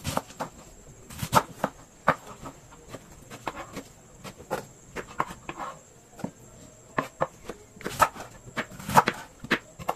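Irregular sharp knocks and taps from kitchen prep work with utensils on a hard surface, one to three a second, some in quick pairs.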